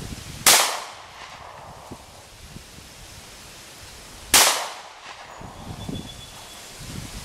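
Two 9mm pistol shots from a Walther PPS, about four seconds apart, each with a short echo trailing off.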